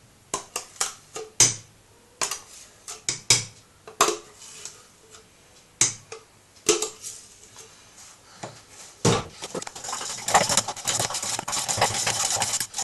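Sharp knocks and taps against a stainless steel pot as whipped egg whites are emptied into it from a plastic blender jug. From about nine seconds in, a spoon scrapes and clatters steadily in the metal pot, stirring the whites into the mascarpone cream.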